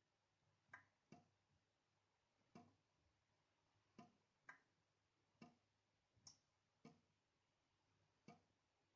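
Water dripping from a tap: about nine single drops at uneven intervals, each a short, faint plink, one of them higher-pitched than the rest.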